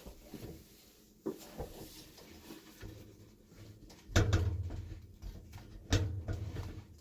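Knocks and clunks of parts being handled under a kitchen sink. There is a sharp click a little over a second in, then louder thumps about four and six seconds in, each trailed by a low scraping rumble.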